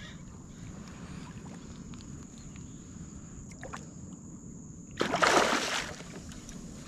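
A hooked gar splashing at the water's surface beside a kayak: one loud splash about five seconds in, lasting just under a second, over a low steady wash of water.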